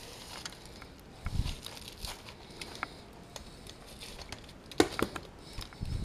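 Gloved hands patting dry rub onto a rack of pork back ribs on aluminium foil: scattered soft pats and foil crinkling, with a dull thump a little over a second in and a couple of sharp clicks near the end.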